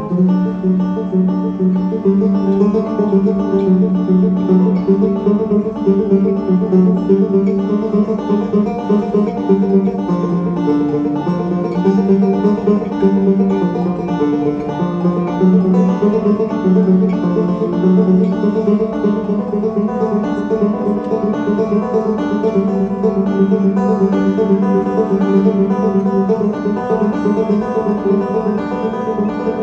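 Live banjo-led jazz-fusion band playing, with the banjo's plucked notes over the rest of the band.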